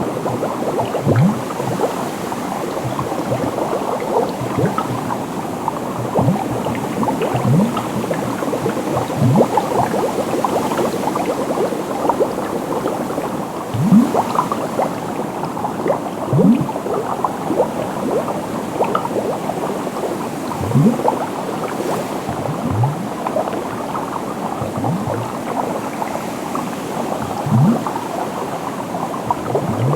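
Water bubbling and gurgling steadily, with short, deep bloops that rise in pitch every second or two.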